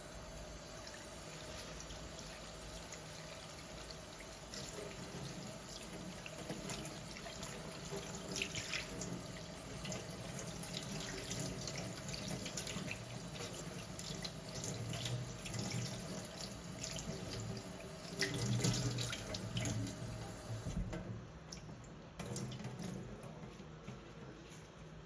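Water running steadily from a tap into a sink, shutting off about 21 seconds in.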